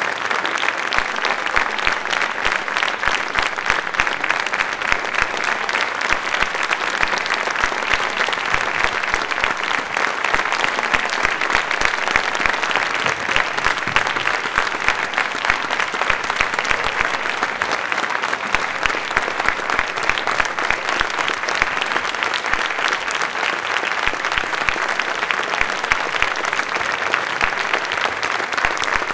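Audience applauding steadily: dense, continuous clapping throughout.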